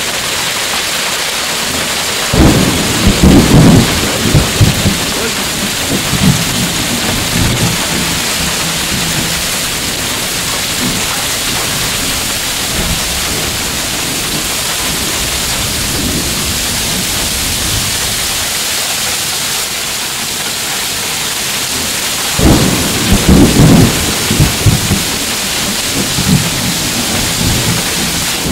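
Heavy rain and hail pouring down in a steady hiss during a thunderstorm, with two loud rumbles of thunder, one about two seconds in and another about twenty-two seconds in, each dying away over a few seconds.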